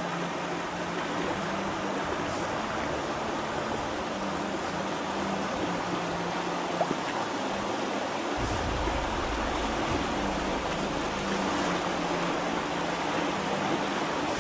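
White water rushing over a small rocky weir on a lowland river, a steady rush. A deeper rumble joins about eight seconds in.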